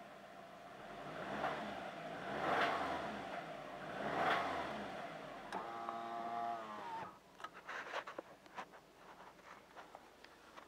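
2002 Subaru WRX's turbocharged flat-four engine revved up and back down three times, then running steadily before it cuts off suddenly about seven seconds in, leaving a few faint clicks. The engine knocks and rattles badly enough that the owner says it needs replacing.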